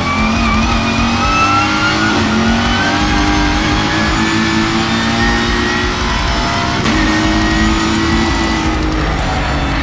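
Ford Mustang race car's V8 heard from inside the cockpit under hard acceleration, the engine note climbing steadily, with a gear change about seven seconds in, over steady road and wind noise.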